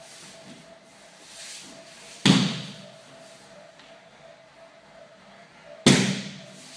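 Two loud slaps on a tatami training mat about three and a half seconds apart, each dying away quickly: an aikido partner's body or hand striking the mat during an ikkajo takedown and pin.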